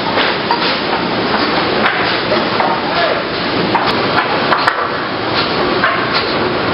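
Wood-processing factory machinery running, a steady din with frequent sharp knocks and clatters of timber, from an optimizing crosscut saw cutting boards and pallet production around it.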